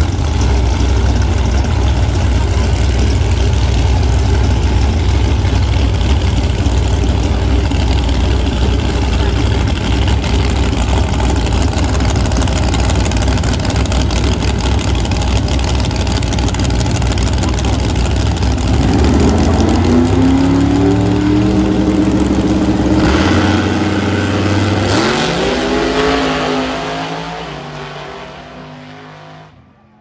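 Two drag racing cars' engines rumbling loudly at the starting line, then revving up and launching, the engine pitch climbing as they accelerate away down the strip and the sound fading with distance over the last few seconds.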